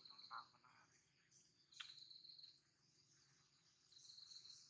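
Faint insects trilling, a high steady buzz that comes in three short bouts about two seconds apart. There is a single sharp click about two seconds in.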